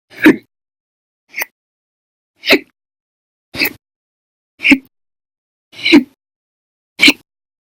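A person hiccuping: seven short, sharp hiccups at a steady pace of about one a second, part of a persistent, hours-long bout of loud hiccups.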